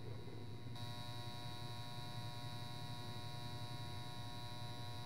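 Steady low electrical hum, joined about a second in by a thin high whine and a few steady mid tones, with no ticking.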